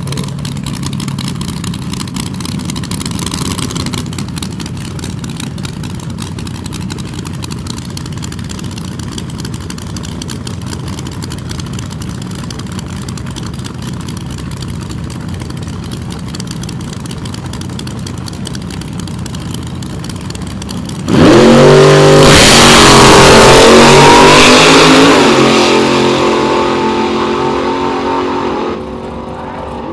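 A front-engine dragster and a second drag car idle on the starting line with a steady engine rumble. About two-thirds of the way through, both launch at full throttle: a sudden, very loud engine howl that climbs in pitch, then fades as the cars run away down the strip and drops off sharply near the end.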